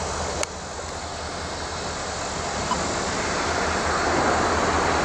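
Diesel freight locomotives approaching, a low engine rumble growing steadily louder. A short click about half a second in.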